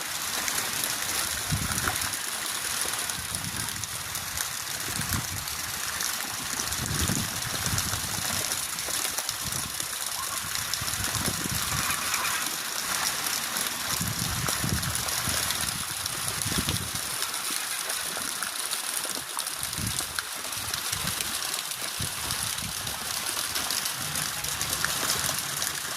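Strong, gusty wind rushing steadily, with low rumbles of wind buffeting the microphone coming and going every second or two.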